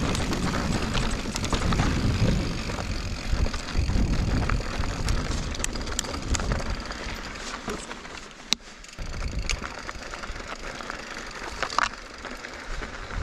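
Mountain bike (a Giant Reign 29 enduro bike) being ridden on dirt singletrack: a steady low rumble of wind and tyre noise, with rattles and sharp clicks from the tyres on rock and the bike's chain and frame. The rumble drops off about halfway through, leaving quieter rolling with scattered clicks and one sharp crack a little past halfway.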